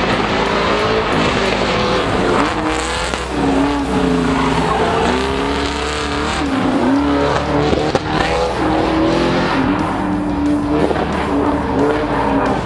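Square-body Chevrolet pickup's engine revving up and down as it is driven hard through an autocross course, its pitch rising and falling repeatedly, with tires squealing through the turns.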